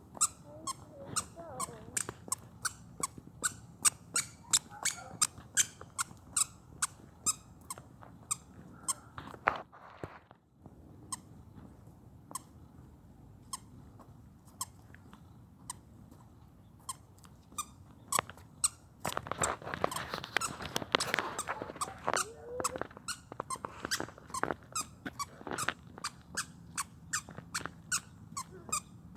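A toddler's squeaker sneakers squeaking with each step, about two to three squeaks a second. The squeaks thin out for several seconds midway, then come back with a louder, busier stretch.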